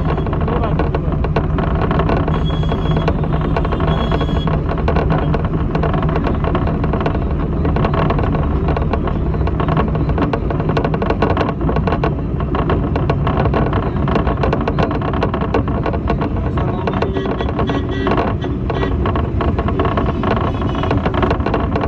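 A bus's body and fittings clattering and rattling in dense, irregular knocks while it drives, over the steady low rumble of its engine.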